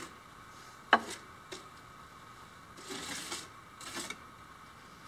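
Steel notched trowel scraping through tile mortar on a concrete slab in short strokes, with a sharp tap of the trowel about a second in and two longer scrapes near the end.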